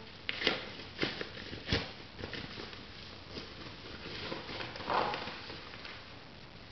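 A shipping package being opened by hand: packaging rustling and crinkling, with a few sharp clicks in the first two seconds and a louder rustle about five seconds in.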